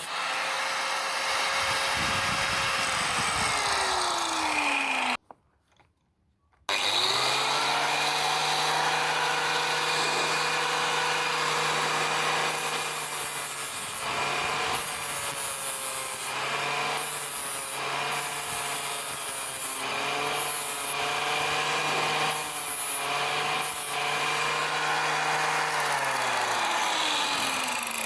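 Angle grinder grinding a steel saw blade. Its whine falls away early, stops for a moment, then spins up again and runs steadily, its pitch dipping again and again as the disc bites into the steel, before it winds down near the end.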